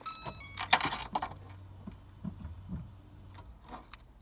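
Car keys clinking and clicking with a few knocks in the first second or so, then a faint low hum that stops near the end, as the car is readied to start.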